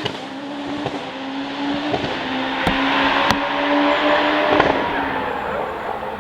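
Hillclimb racing car engine at high revs, holding a near-steady note as the car pulls away, with a few short sharp cracks along the way. The note fades near the end.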